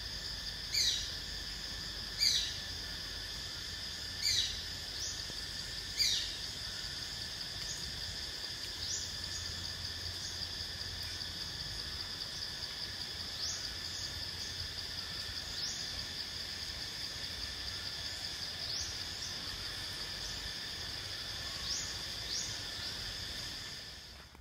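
Steady chorus of insects with a few layered ringing tones, and a bird giving four sharp, loud calls about every two seconds in the first six seconds, then fainter short calls now and then. It all drops away at the very end.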